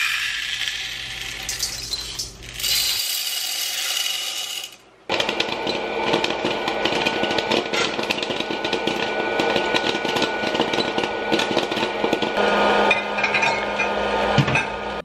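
Popcorn popping in a popper: a dense run of rapid, irregular pops over a steady motor hum, starting about five seconds in after a noisy hiss.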